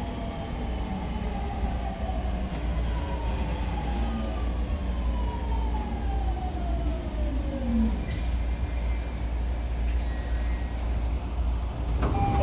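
Onboard running sound of a JR East 209 series electric train in a motor car: the traction motor and inverter whine falls steadily in pitch as the train slows toward a station, dying away about eight seconds in. Under it runs the steady low rumble of the wheels on the rails.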